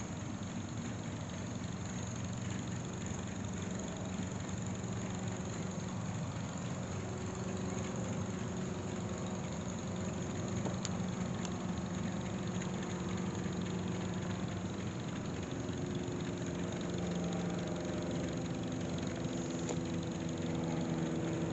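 An engine idling steadily, its hum growing a little louder and clearer toward the end.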